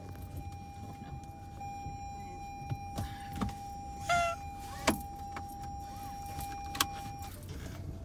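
Oriental Shorthair cat giving one short honking call about four seconds in, over the hum of a car interior and a steady high tone that stops near the end. A few sharp clicks come around it, the loudest just after the honk.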